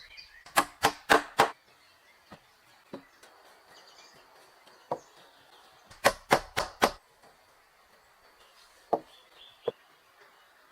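Sharp knocks from a hand tool striking: two quick runs of four blows, each run lasting under a second, with a few single, fainter knocks in between.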